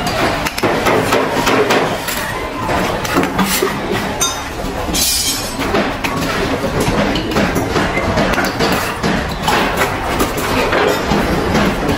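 Bricklaying: a steel trowel clinking and scraping on mortar and hollow clay bricks, and bricks being tapped down, as many short clicks and knocks over a steady din of background noise.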